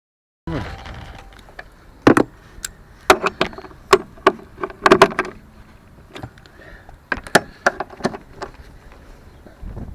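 Irregular metallic clanks and knocks from tools and metal parts being handled during car suspension work. They start abruptly about half a second in, with several sharp hits of uneven spacing.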